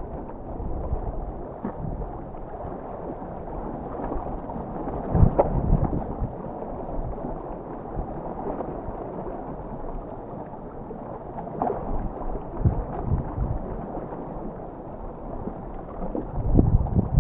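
Strong wind blowing and buffeting the microphone, in gusts that come as low rumbling swells about five seconds in, around twelve seconds, and near the end.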